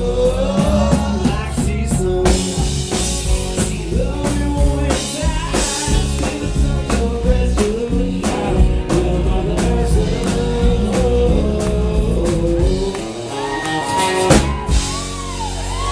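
Live band playing a song: a singer with an amplified acoustic guitar over drums and bass. About 13 seconds in, the drums and bass drop away and the song thins to voice and guitar.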